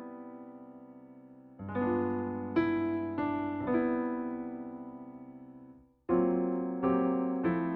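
Slow piano music: chords struck one after another and left to ring and fade, dying away almost to nothing shortly before a new chord about six seconds in.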